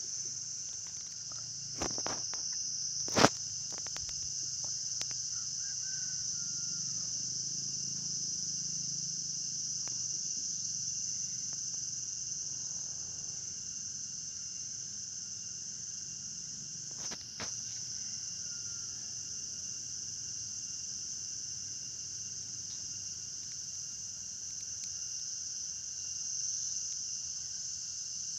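A steady, high-pitched chorus of insects, unbroken throughout. A few sharp clicks sound near the start, the loudest about three seconds in, and another comes near the middle.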